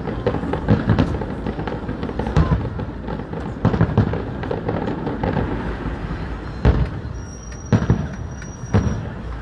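Aerial fireworks going off in an irregular series of about nine sharp booms and bangs, some in quick pairs, over a continuous rumble of further bursts.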